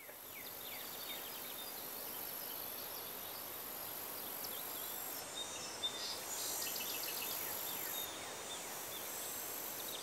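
Outdoor ambience: a steady hiss with a high insect-like band, and birds chirping, with a quick run of short chirps between about five and eight seconds in.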